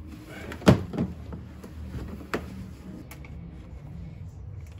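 Cable bundle of thick power wire being pulled through holes in a plastic floor board, with handling rustle and a few sharp knocks, the loudest about a second in.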